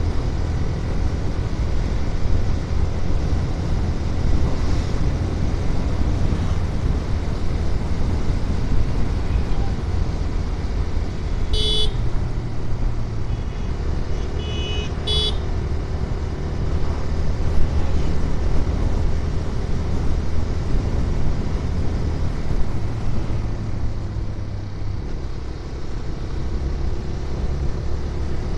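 Motorcycle engine running steadily at road speed, its drone stepping in pitch now and then. A horn toots briefly twice, about twelve seconds in and again about three seconds later.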